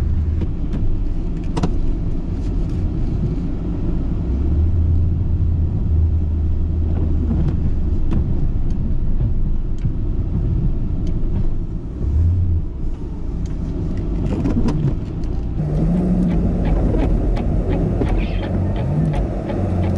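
The 5.7-litre Hemi V8 of a 2012 Ram 2500 pickup runs while plowing snow, heard from inside the cab as a steady low rumble. Scattered light clicks and knocks come through now and then.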